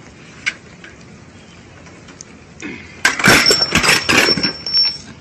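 A child's bicycle breaking apart under a heavy adult rider and crashing onto concrete. The crash is a loud, jumbled clatter starting about three seconds in and lasting some two seconds, with a thin high tone running through it.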